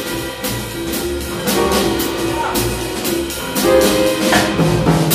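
Live ensemble of string quartet with double bass and drum kit playing, drum and cymbal strokes marking a steady beat under held string notes, closing on a loud accent near the end.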